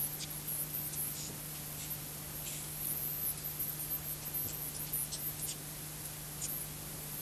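Scrambled analog pay-TV sound played back from a VHS tape: a steady low hum under hiss, with irregular short scratchy crackles every half second or so.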